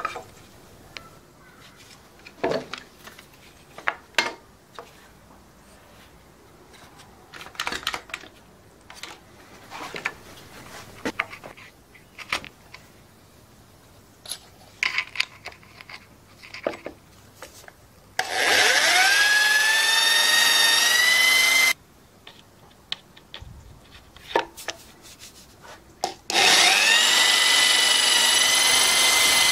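Cordless drill with a small bit drilling a pilot hole through a timber guide into a concrete fence post: two loud runs of a few seconds each in the second half, the motor whine rising in pitch as it spins up. Before them, scattered knocks and clicks of the drill and timber being handled.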